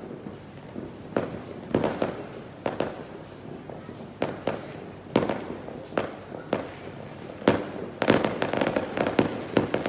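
Neighbourhood fireworks and firecrackers going off: scattered sharp bangs at irregular intervals from about a second in, then a rapid string of pops near the end.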